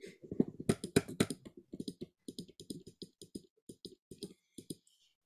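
Computer keyboard keys tapped in a quick, irregular run of clicks, loudest about a second in.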